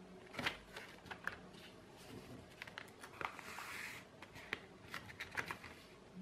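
A sheet of paper being folded and creased by hand: scattered soft crinkles and taps, with a longer rustle of paper sliding under the hands about halfway through.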